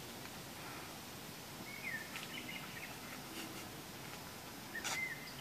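Outdoor woodland ambience: a steady background hiss with a few short, high bird chirps about two seconds in and again near the end, and one sharp click near the end.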